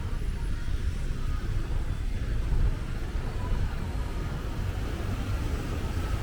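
Outdoor street ambience dominated by a steady, fluttering low rumble, with a faint even hiss above it.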